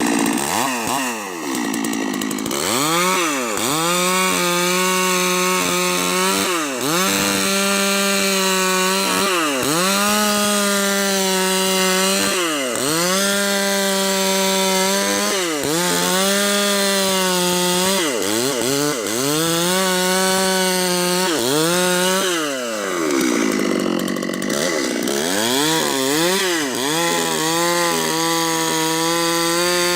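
Two-stroke chainsaw with a long 1.20 m bar ripping a log lengthwise into boards. The engine runs at high revs and dips in pitch every few seconds as the chain bogs in the cut, then picks back up.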